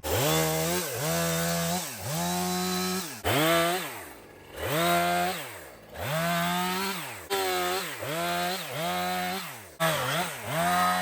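Husqvarna 455 Rancher two-stroke chainsaw running at high revs, its pitch repeatedly dropping and climbing back roughly once a second as it is throttled and cuts into old fence wood.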